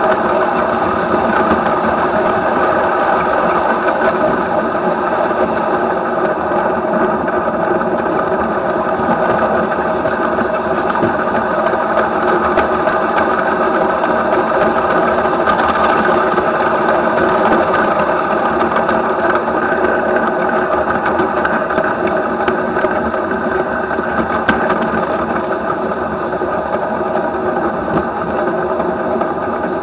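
Running noise of a 7¼ inch gauge live steam model of a German Class 23 locomotive, heard close up at its frame: wheels and running gear clattering steadily along the track.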